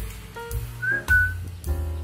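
Background music with a whistled melody over bass notes; the whistle slides up into a short held note about a second in.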